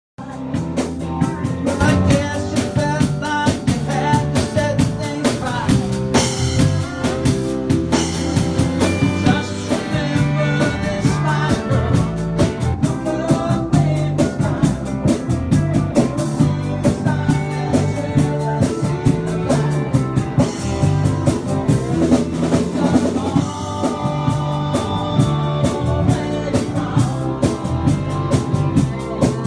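Live band playing a song: a man singing over a digital piano, a drum kit keeping a steady beat, and a guitar.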